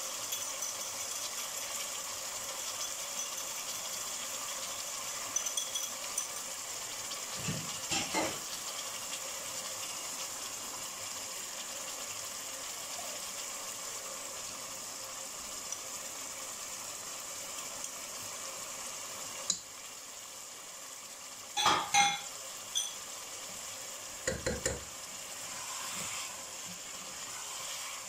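Chicken curry sizzling steadily in a pot, with scattered clinks of a fork and spoon against a small bowl of yogurt and the pot. The loudest is a short clatter about two-thirds through.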